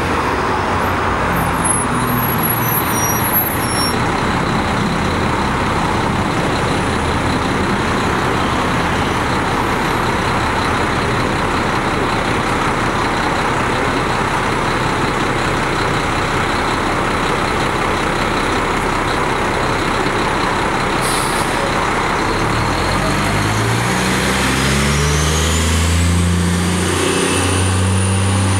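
New Flyer D60HF articulated diesel bus idling at the curb. About 21 s in there is a short hiss of air. The bus then pulls away, its engine note climbing in steps as it accelerates, with a thin whine rising near the end.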